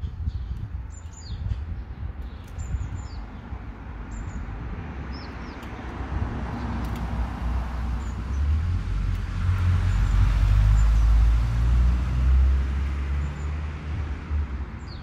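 Wood fire burning in a Quechua MH500 camping wood stove under a kettle: a low rumble with a hiss that swells about halfway through. Small birds chirp in short calls in the first few seconds and again at the end.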